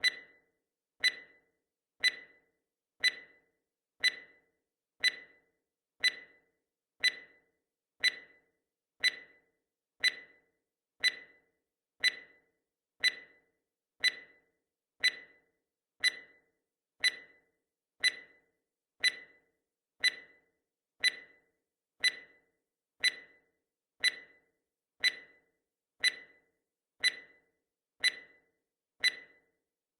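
Countdown timer sound effect: a short, sharp tick once every second, evenly spaced, each dying away quickly.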